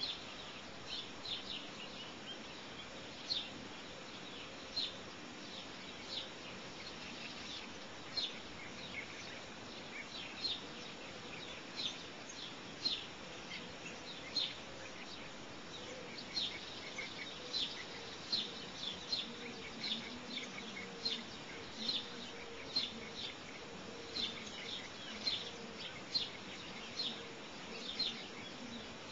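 A bird calling in short, high chirps, one or two a second, over a faint steady background hiss.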